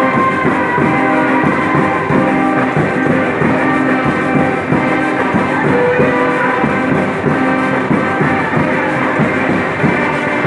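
A church orchestra playing an instrumental piece: many instruments holding notes together over a steady drum beat.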